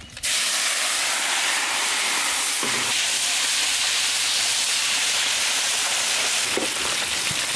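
Whole spotted snakehead fish dropped into a wide steel pan of hot oil: the oil starts sizzling suddenly just after the start and keeps frying hard with a loud, steady hiss.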